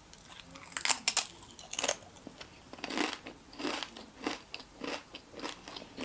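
Doritos tortilla chip bitten with a few sharp crunches in the first two seconds, then chewed with a steady crunch about every half second.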